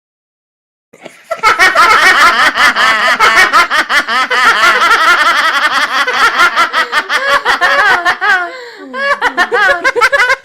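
Laughter sound effect: many voices laughing hard at once, starting about a second in, with a short lull and a few falling 'ha-ha' laughs near the end.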